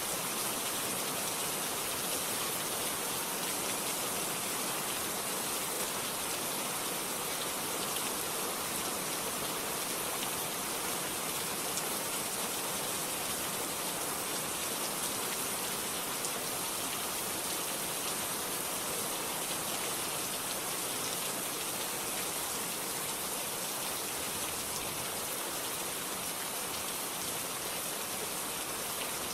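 Steady rain falling, with a dense hiss and fine patter of drops and no thunder.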